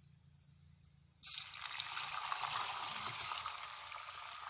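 Milk pouring in a steady stream from a jug into a kadai of ghee-roasted vermicelli and nuts, starting about a second in.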